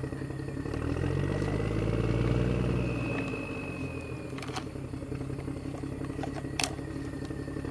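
An engine or motor running steadily, growing louder about a second in and easing off after about three seconds, with a few sharp clicks.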